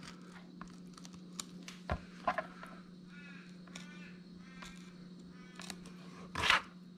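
Faint small clicks and scrapes of a filleting knife cutting down a garfish's spine and through its fine rib bones on a cutting board, with a sharper scrape near the end, over a steady low hum.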